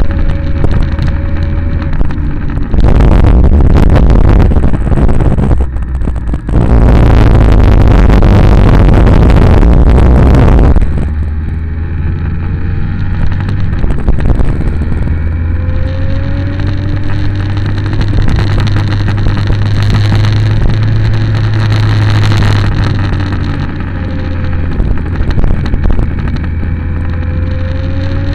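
Vehicle engine running steadily, its pitch rising and falling gently with the revs. Two long bursts of loud wind noise on the microphone drown it out, from about three to six seconds in and again from about seven to eleven seconds in.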